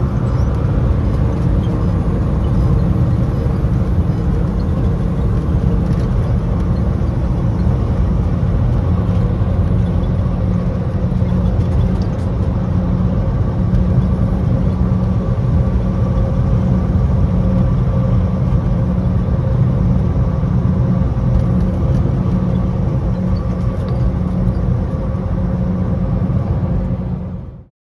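Truck engine and road noise while driving at highway speed: a steady low drone with a faint hum in it that holds without change, then fades quickly and cuts off just before the end.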